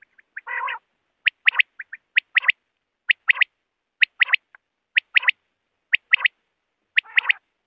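Common quail calling: the male's sharp three-note 'wet-my-lips' phrase, repeated about once a second. A short, rougher call comes about half a second in.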